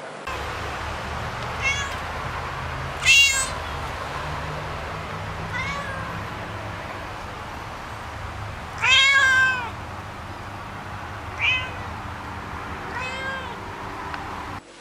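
A cat meowing about six times, short arching meows with one longer, louder meow near the middle, over a steady low hum.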